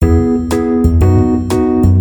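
Background music: a keyboard or piano melody with a strong low bass, notes struck about twice a second in an even beat.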